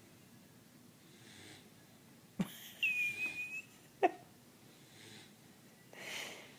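A sleeping pet's soft snoring breaths, coming as faint hisses every few seconds. Near the middle a sharp click is followed by a loud, steady, high whistle-like tone lasting under a second, and then another sharp click.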